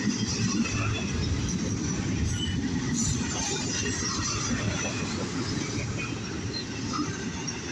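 Intermodal freight train's container cars rolling past: a steady rumble and clatter of steel wheels on the rails.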